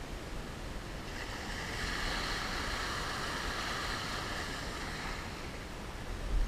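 Small shore-break waves washing up and draining back over sand, the wash swelling about a second in and easing off a few seconds later. A gust of wind buffets the microphone near the end.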